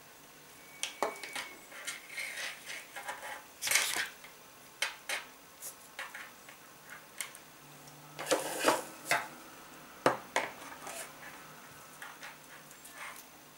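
Beads of a shamballa bracelet clicking against each other as it is handled, with short rustles of the waxed cord, in irregular clusters of clicks; the loudest come about four seconds in and again around eight to ten seconds in.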